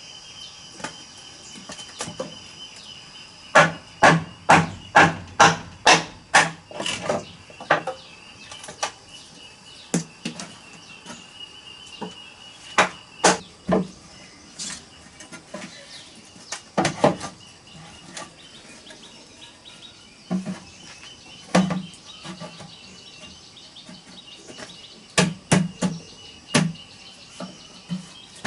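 Hammer blows on wood as slats are fixed onto a bamboo bed frame: a quick run of about eight strikes a few seconds in, then single blows and short groups. Insects trill steadily behind them.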